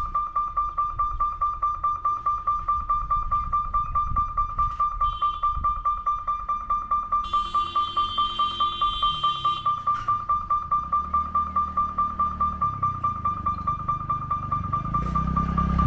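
Level-crossing warning alarm sounding while the barriers come down: a high electric tone pulsing about four times a second. A horn sounds for about two seconds midway, and a motor vehicle rumbles in near the end.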